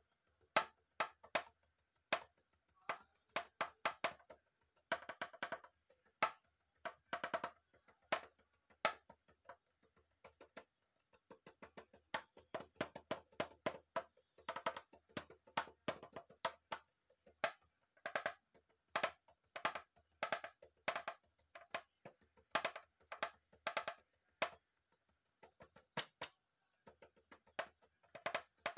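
Homemade drum, a round pink plastic container, struck with thin sticks: sharp clicking strokes in rhythmic groups with quick rolls, broken by a couple of short pauses.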